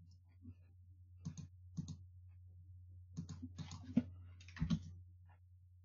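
Faint scattered clicks and taps at a computer. There are a couple of single clicks, then a denser run of them from about three to five seconds in, over a steady low hum.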